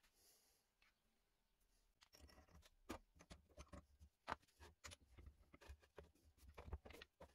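Faint, irregular knocks and taps of wooden pieces being handled and set in place on a drill press table, starting about two seconds in after near silence.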